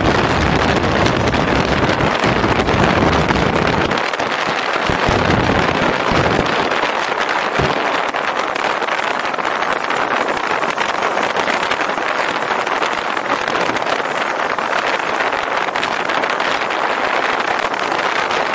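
Steady wind rush and road noise from a moving motorcycle, heard through a bike-mounted camera's microphone. The deep buffeting eases after about four seconds.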